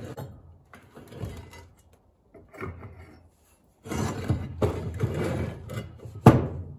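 Metal engine-adapter parts being handled and slid against each other in several short scraping and rattling bursts, the longest about two-thirds of the way through, then one sharp clank near the end.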